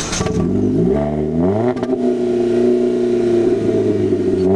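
Ford Fiesta's engine revved through a Borla cat-back exhaust: the note climbs for about a second and a half, then is held steady at high revs.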